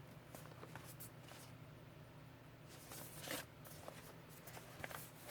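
Faint rustling, scraping and light tapping of a cardboard product box being handled and turned over in the hands, a little louder about three seconds in.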